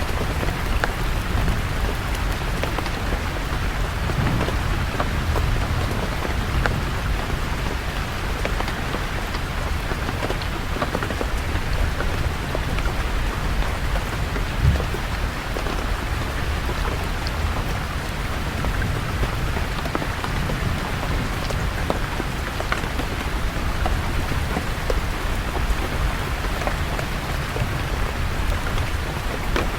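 Steady rain falling on leaves, with individual drops ticking and a continuous low rumble of distant thunder underneath.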